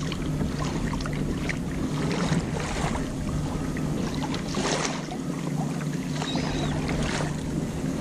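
Open-water ambience from a kayak: steady water and wind noise with a low hum, and a few brief high chirps.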